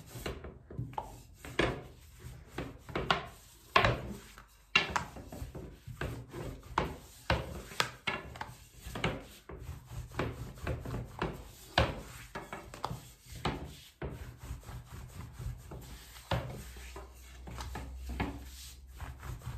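Long thin wooden rolling pin (oklava) rolling out thin börek dough on a floured worktop: a quick, irregular run of wooden rubbing strokes and light knocks as the pin is pushed back and forth.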